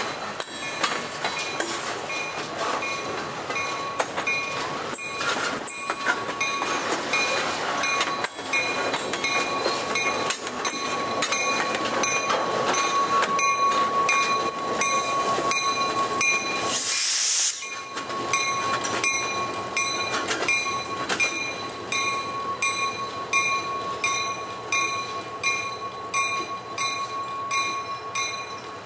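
Freight cars and an EMD SW1200 switcher locomotive rolling slowly past, their wheels clicking over the rail joints in a steady rhythm. A thin, steady wheel squeal runs underneath, and a brief hiss comes about two-thirds of the way through.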